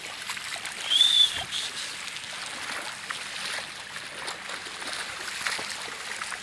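Steady outdoor hiss of open-air ambience, with one short high-pitched chirp about a second in.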